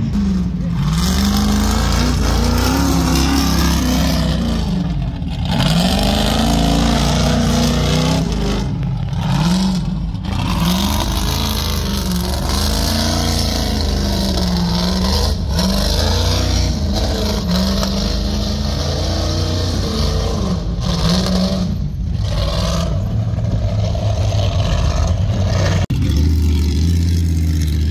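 Off-road race car's engine revving up and down over and over as it climbs a steep rocky slope, with a few brief dips in the sound.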